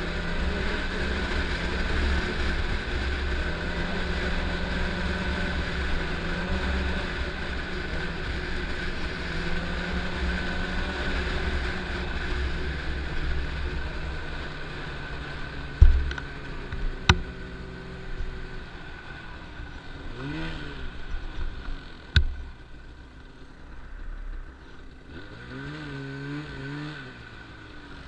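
Snowmobile engine running at speed with wind rushing, then easing off to a lower idle about halfway through. A few sharp knocks come during the slowdown, and the engine is blipped twice in brief rising-and-falling revs while stopped.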